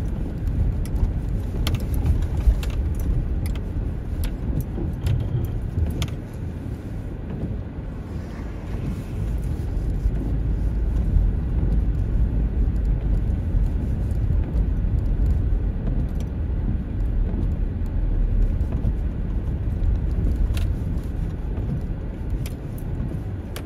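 Road noise heard from inside a sedan's cabin as it drives over a rutted, packed-snow and ice road: a steady low rumble of tyres and suspension, with scattered sharp knocks and rattles as the car jolts over the ruts.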